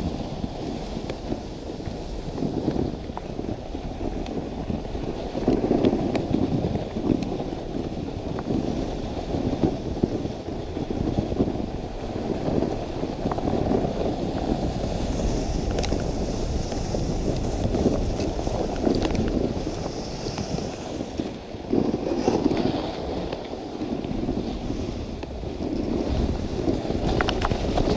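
Dog sled runners sliding over snow, making a steady scraping rumble that swells and dips with the terrain, mixed with wind buffeting the microphone.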